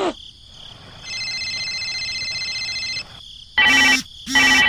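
Electronic beeping: a steady high-pitched tone lasting about two seconds, then two short, loud beeps in quick succession near the end.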